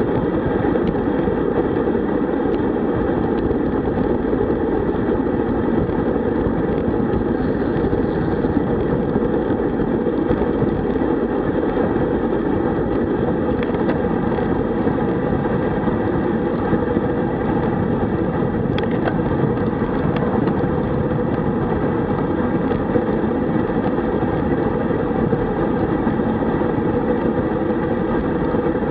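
Steady rush of wind and tyre road noise on a road bike's onboard camera microphone while riding at about 36 km/h.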